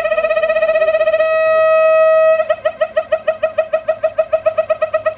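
Siemens Desiro BR642 railcar's horn sounded 'machine gun' style: a single-pitch horn chopped into rapid blasts, about eight a second. About a second in it holds one steady blast for just over a second, then goes back to the rapid staccato pulsing.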